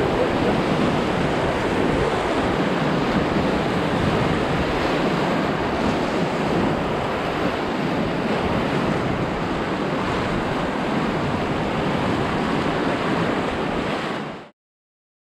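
Whitewater of a big river rapid rushing steadily around a raft, with wind buffeting the microphone; the sound cuts off suddenly near the end.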